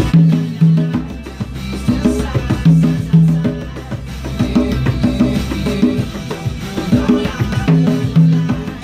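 A pair of conga drums played by hand in a tropical Latin rhythm, with ringing open tones and sharp strikes, over a recorded pop song playing from a TV. The player says the congas may be a little out of tune.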